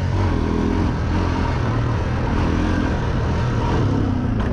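ATV engine running steadily as the quad is ridden along, a constant low drone with rushing noise over it.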